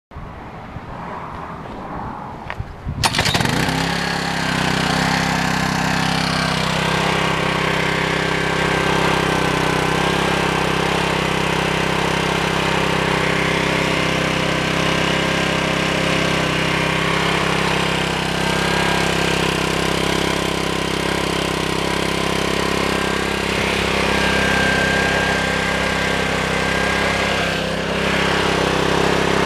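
Honda GCV160 single-cylinder four-stroke OHC engine on a pressure washer starting up about three seconds in, then running at a steady speed.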